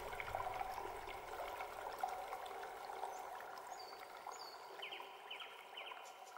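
Faint steady rushing like running water, with a few short high chirps about two thirds of the way in, fading out steadily.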